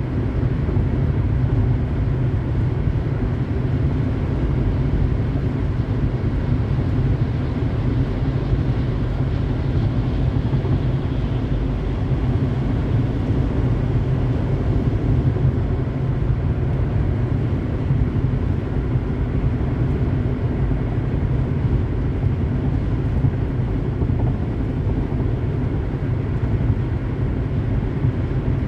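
Car driving at highway speed: a steady low rumble of road, tyre and engine noise, even throughout.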